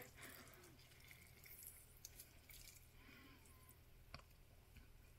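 Near silence: a few faint drips and soft squishes of a lime being squeezed over avocado in a bowl, over a low steady hum.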